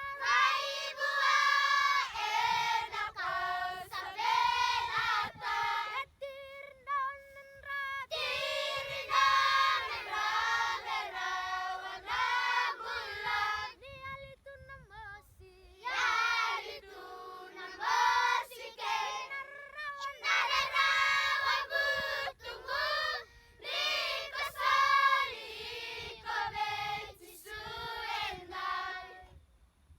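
A group of children singing together, with a couple of brief quieter passages; the singing stops just before the end.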